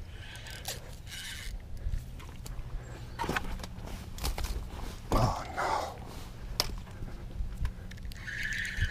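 Wind rumbling on the microphone, with scattered clicks and scraping handling noises and a louder rustle about five seconds in.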